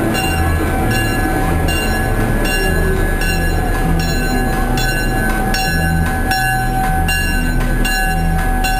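Vintage passenger coach rolling along the track, heard from inside the car: a steady rumble with a regular clatter of about two beats a second and a thin steady whine from the wheels on the rails.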